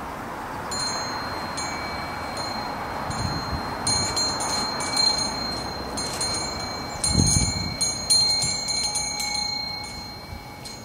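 Wind chime ringing over and over, several clear high tones struck again and again, over a steady background hiss. A short low thump about seven seconds in.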